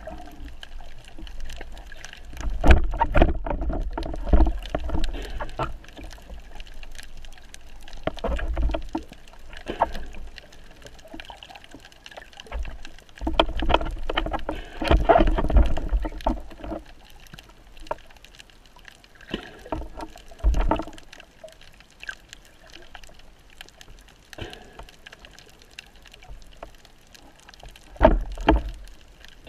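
Water rushing and sloshing with knocks and low thuds, heard underwater through a camera housing, while a speared fish is handled on the spear shaft. It comes in irregular surges, the loudest a few seconds in and about halfway, and a sharp one near the end.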